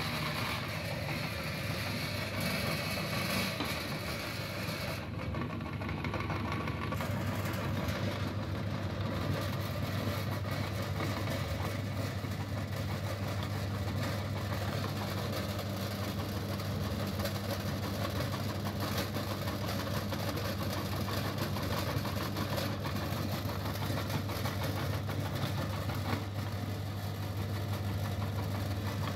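Motor-driven meat grinder running steadily with a low hum while grinding soap, its auger pushing the soap out through the cutting plate.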